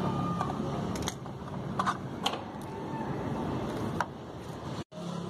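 Scattered sharp clicks and light clatter as the plastic air filter cover is worked loose and lifted off a Suzuki Access 125's clutch cover, over a steady low hum. The sound cuts out for an instant near the end.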